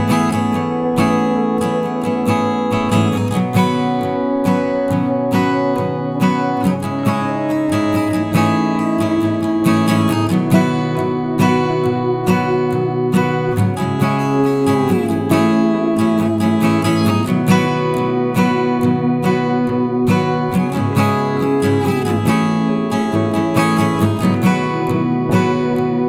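Background music: strummed acoustic guitar with sliding notes.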